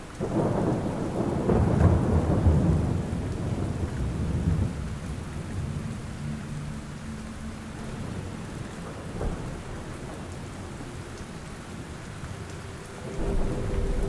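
Steady rain with a long roll of thunder that rumbles loudest in the first few seconds and then fades away, and a second rumble building near the end.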